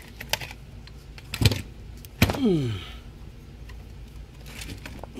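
Scattered clicks and knocks of a camera being handled and set down, over a steady low hum, with a short falling tone just after the loudest knock about two seconds in.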